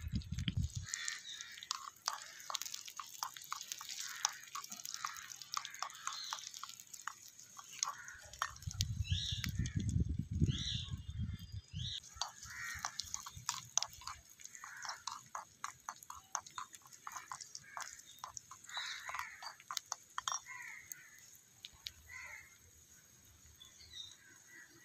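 Chopped onions sizzling and crackling in hot oil in a small clay pot, stirred with a tiny spoon. The crackle is dense at first and thins out in the second half. Crows caw now and then, and a brief low rumble comes near the middle.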